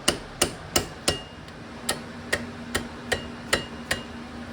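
A hammer tapping on a screwdriver used as a punch to drive the brake-pad retaining pin out of a 2020 Triumph Street Triple RS's rear brake caliper: about a dozen sharp metal taps, two or three a second, with a short pause after the first four.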